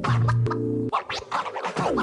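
Background music: an electronic track with held chords, short sharp stabs and a falling sweep near the end.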